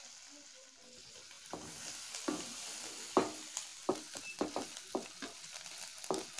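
Finely chopped garlic sizzling in melted butter in a kadai with a steady hiss. From about a second and a half in, a wooden spatula stirs it, knocking and scraping against the pan every half second or so.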